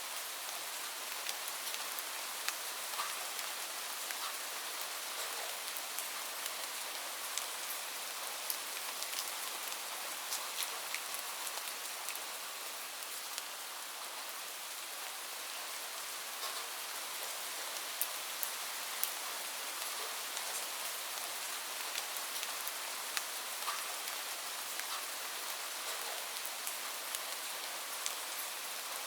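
Light rain falling steadily: an even hiss with many scattered individual drops ticking on a surface.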